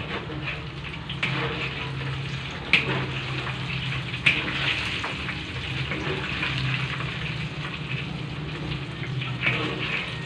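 Hot cooking oil sizzling and crackling in a wok as a wire skimmer scoops out the last fried kremes batter crumbs, with two sharp knocks about three and four seconds in.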